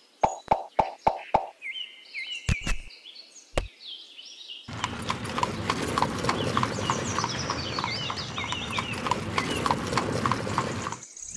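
Hoof clip-clops at about four a second, as of a draught animal walking, then a few chirps and two dull thumps. From about five seconds in there is a dense rattling clatter with chirping over it, which cuts off just before the end.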